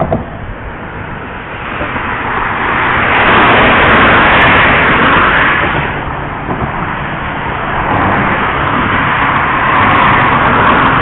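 Road traffic passing on a street: tyre and engine noise swelling as a car goes by about three seconds in, and again near the end, with a brief knock at the very start.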